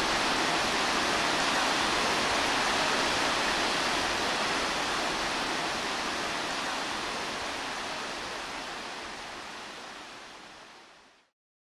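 Steady rushing of a rocky creek's rapids, water running over stones, fading out over the last few seconds.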